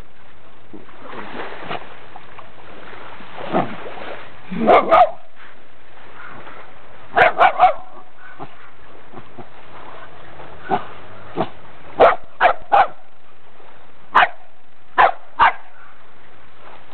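A Brazilian terrier (Fox Paulistinha) barking at a crab it is trying to catch: about a dozen short, sharp barks in scattered clusters of two or three, over a steady background hiss.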